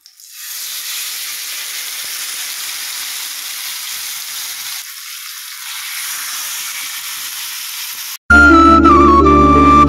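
Whole spice-coated fish laid on a hot flat iron griddle, sizzling steadily in the oil. About eight seconds in the sizzle cuts off abruptly and loud flute-led folk music begins.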